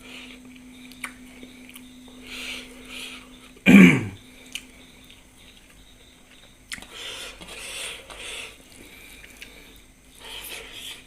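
A person coughs or clears their throat once, loudly, about four seconds in, while eating food made with bhut jolokia chilli. There are softer breathy sounds before and after.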